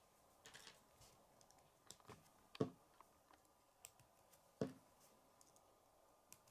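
Faint plastic clicks of K'nex pieces being handled and snapped together: scattered single clicks, with two louder ones about two and a half and four and a half seconds in.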